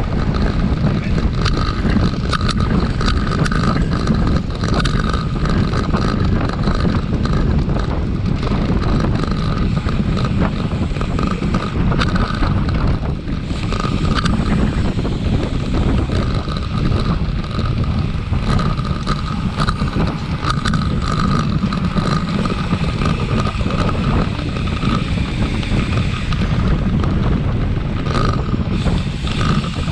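Steady wind rumble buffeting an outdoor microphone.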